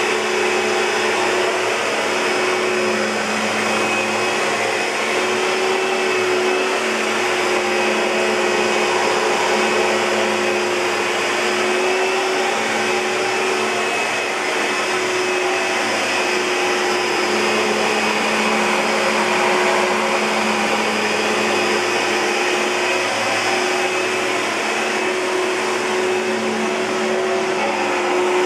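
Oreck Magnesium LW100 lightweight bagged upright vacuum cleaner running steadily: a constant motor whine over rushing air.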